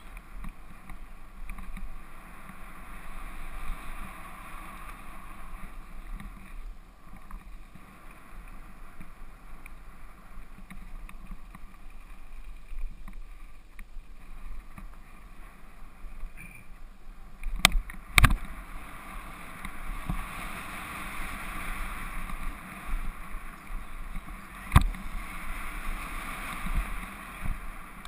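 Specialized Stumpjumper FSR full-suspension mountain bike riding fast down a gravel forest trail: a steady rush of tyre-on-gravel noise and wind, with three sharp knocks from the bike hitting bumps, two close together past the middle and one a few seconds later.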